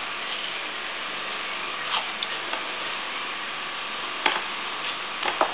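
Masking tape being pulled from its roll and pressed around short pieces of clear plastic tubing: a few short crackles and taps, the loudest cluster near the end, over a steady hiss.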